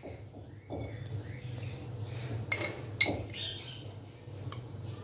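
Spoon clinking against crockery, two sharp clinks about two and a half and three seconds in, with a fainter tap later, over a low steady hum.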